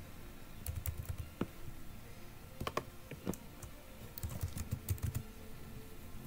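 Typing on a computer keyboard: two short runs of keystrokes, about a second in and again just past four seconds, with a few single clicks between.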